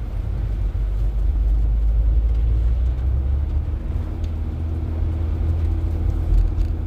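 Car cabin noise while driving on a snowy road: a steady low rumble of tyres and engine, with a faint steady hum joining about three and a half seconds in.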